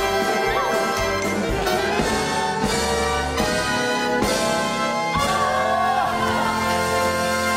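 Upbeat orchestral show music with prominent brass, playing at a steady level.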